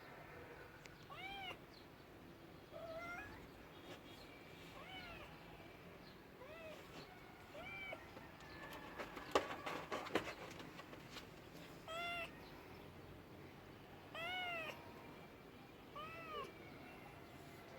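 A cat meowing over and over: about eight short meows, each rising then falling in pitch, a second or two apart. A cluster of sharp knocks or taps comes about halfway through.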